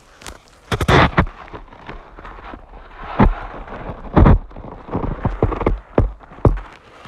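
Footsteps crunching in snow, an irregular series of loud crunches about once a second, with low rumbles from the phone's microphone being handled.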